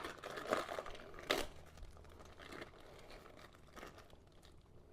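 Rustling and crinkling from parts and their packaging being handled, with a few sharp clicks, busiest in the first half and then fading.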